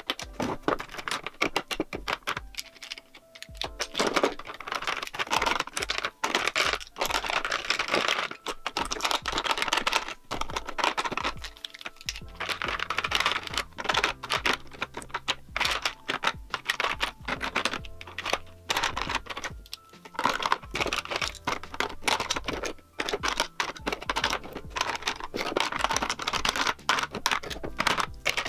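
Plastic lipstick and lip-gloss tubes clicking and clattering as they are handled and set into clear acrylic drawer organizers, over background music.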